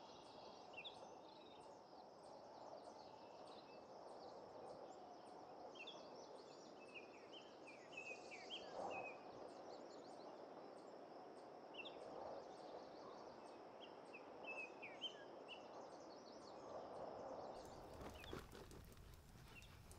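Quiet woodland ambience: birds chirping in short rising and falling calls, over a steady high insect drone and a soft rushing haze. Near the end the sound changes and a few sharp crackles come from the campfire.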